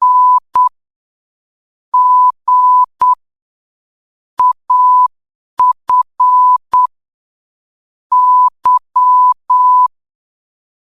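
Morse code sent as a steady high-pitched beep in short dots and longer dashes. It comes as five single letters with a pause of about a second or more between each, as in a practice drill. The groups read dash-dot, dash-dash-dot, dot-dash, dot-dot-dash-dot and dash-dot-dash-dash: N, G, A, F, Y.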